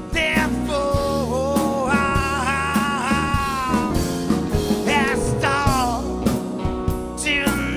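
Rock-blues band playing: a lead line of long, bending, wavering notes over drum hits and a steady bass.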